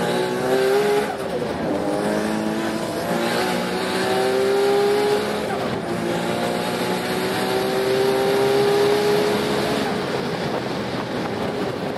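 Nissan RB26 straight-six with a single T04Z turbo, swapped into a Toyota Altezza, heard from inside the cabin pulling at full throttle. The pitch climbs, drops at gear changes about a second and five and a half seconds in, climbs again, then eases off near ten seconds.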